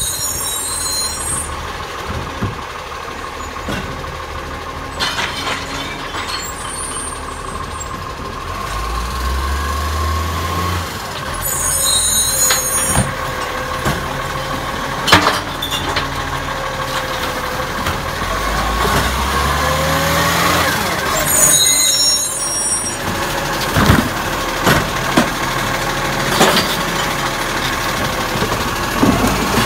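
Iveco Acco side-loader garbage truck running, with short hisses of air from its air brakes several times. The diesel revs up twice as the automated arm lifts and tips a wheelie bin. Sharp clanks and knocks come from the bin and the arm, the loudest as the bin is tipped over the hopper.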